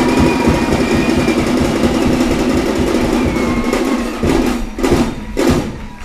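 Large audience applauding, a dense, steady clapping that thins out about four seconds in to a few last separate claps.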